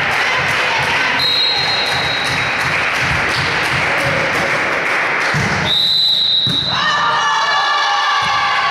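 Volleyball hall crowd noise with rapid rhythmic clapping or beats. A referee's whistle blows briefly about a second in and again, longer and louder, around six seconds in to end the rally. Fans then raise their voices in chanting and cheering.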